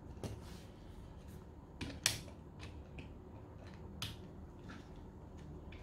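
Faint, scattered clicks and taps of small screwdrivers being set into their plastic desk stand, the loudest about two seconds in and another about four seconds in.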